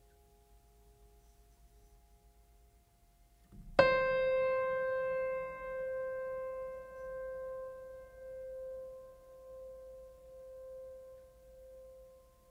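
Background music: a single piano-like keyboard note struck about four seconds in, ringing out slowly with a gently wavering swell as it dies away, over faint held tones.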